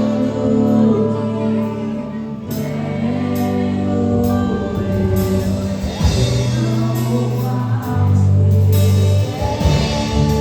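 Live gospel worship music: singing over sustained keyboard-like chords and a low bass line, at a slow worship tempo.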